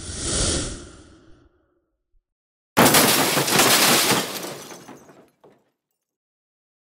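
Edited-in sound effects: a rushing noise that swells and fades over about the first second, then, after a silent pause, a sudden loud crash that dies away over about two and a half seconds.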